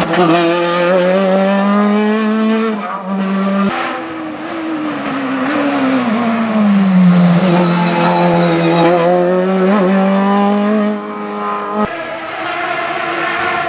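Sport prototype race car engine running hard at high revs up a hillclimb. Midway its pitch slides down over a couple of seconds as the car slows for a bend, then it holds high again. The sound changes abruptly twice.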